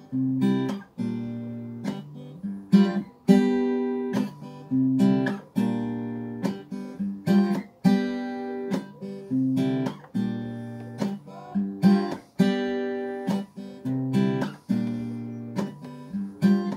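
Steel-string acoustic guitar played solo, a repeating pattern of strummed chords, each stroke ringing on into the next, with no singing.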